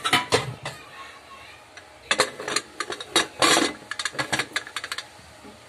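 Metal pressure cooker lid being put on and closed: a few sharp metal knocks at the start, then a quick run of clicks, clinks and scraping metal from about two seconds in until near the end.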